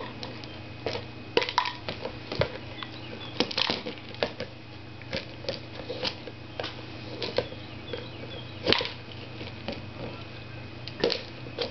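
Irregular light taps, scrapes and rustles as a cat paws and rummages to get at a treat, over a faint steady hum.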